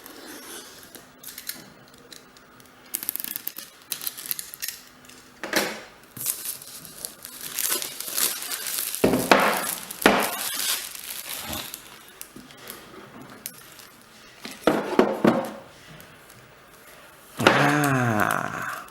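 Hands unpacking and handling a mini laptop: packaging rustling and crinkling, with scattered clicks and two sharp knocks about nine and ten seconds in.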